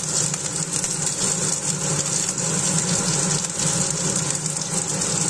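Sliced onions and carrot strips sizzling in smoking-hot olive oil in a frying pan, a steady hiss, over a steady low hum.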